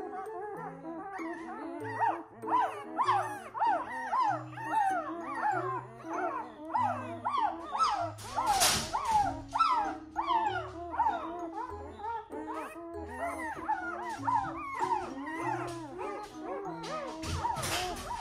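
Newborn Noble Shepherd (wolf-hybrid) puppies squealing and whimpering almost without pause: many short, high cries that rise and fall, several a second. Background music with sustained low notes plays underneath.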